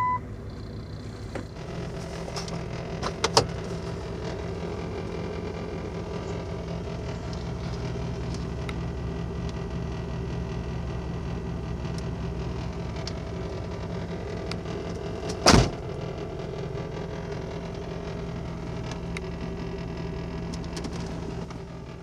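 Steady running hum of a 1996 Jeep Grand Cherokee. A couple of sharp clicks come about three seconds in, and one loud thump about fifteen and a half seconds in.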